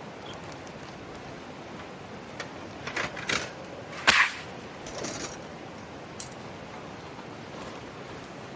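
Steady rushing of a mountain stream, with a handful of sharp cracks and clacks through the middle, the loudest about four seconds in.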